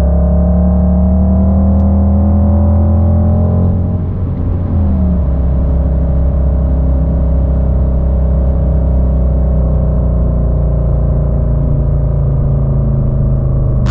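Simulated Mercedes-AMG GT 63 S twin-turbo V8 engine and exhaust sound from an engine-sound app, played through the car's speakers in the cabin. The engine note climbs slowly, falls back briefly about four seconds in, then holds steady, easing down a little.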